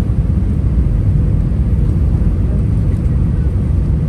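Steady, loud rumble of an Airbus A319 airliner heard from inside the passenger cabin: engine and airflow noise, deepest in the low end.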